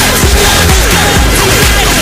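Electronic dance music with a steady beat and repeated falling synth glides.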